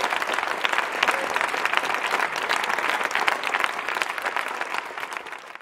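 Large crowd applauding, many hands clapping densely, fading out near the end.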